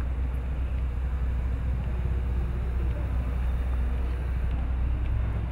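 Steady low rumble of outdoor ambience, with faint voices in the background.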